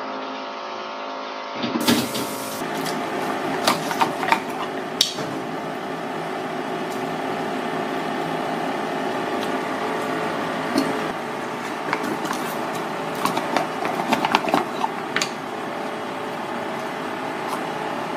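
Kitchen handling of abalone: scattered clicks and knocks of shells and utensils over a steady hum.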